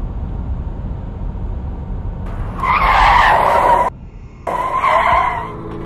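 Low car engine rumble, then car tyres screeching twice as police cars brake to a stop. The first screech comes about two and a half seconds in and the second about half a second after it ends, each cutting off suddenly.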